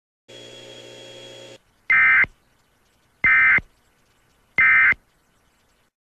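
Emergency Alert System end-of-message data signal: three short, loud bursts of buzzy digital data tones about a second apart, marking the end of the alert. Before them, a second or so of steady hum and hiss.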